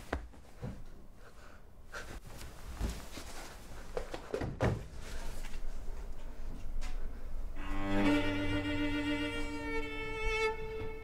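Scattered soft knocks and rustles, then about seven and a half seconds in a held bowed-string chord of cello and violin comes in, swelling and stopping suddenly near the end.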